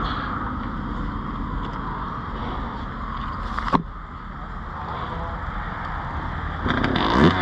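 Yamaha YZ125 two-stroke dirt bike being kick-started: one sharp knock of the kick about halfway, then the engine catching and revving up, rising in pitch, near the end, over a steady low rumble.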